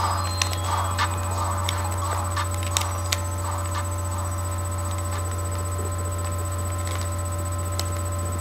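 Scattered sharp clicks of a Rubik's cube being twisted, over a steady low electrical hum.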